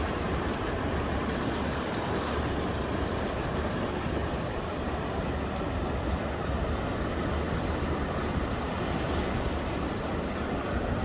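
Steady rushing noise of snowstorm wind, unbroken and without any distinct knocks or tones.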